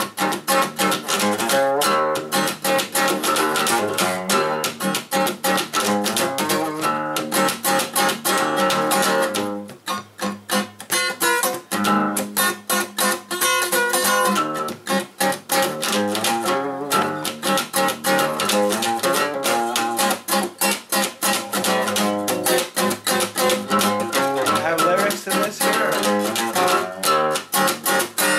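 Acoustic guitar strummed quickly and steadily, full chords ringing out. About ten seconds in the strumming drops quieter and thinner for a moment before it picks up again.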